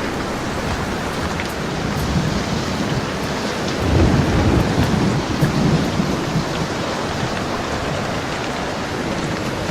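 Steady rain falling, with a low roll of thunder that swells about four seconds in and rumbles away over the next couple of seconds.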